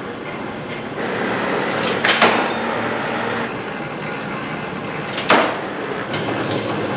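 Machinery running with a steady rattling rumble, with two sharp knocks about three seconds apart.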